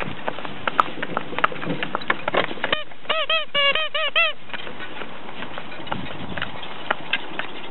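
Hooves of a pair of harnessed ponies clip-clopping on an asphalt lane as they pull a carriage. About three seconds in comes a quick burst of eight or so goose honks, each rising and falling in pitch, lasting about a second and a half.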